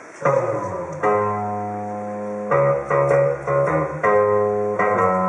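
Guitar playing ringing chords, a new chord struck about every second and a half.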